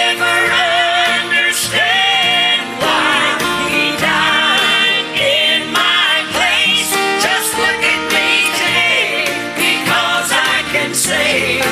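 Southern gospel song, with singing over instrumental accompaniment.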